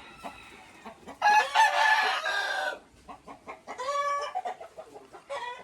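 A rooster crowing once, about a second in and lasting about a second and a half, followed by shorter chicken calls.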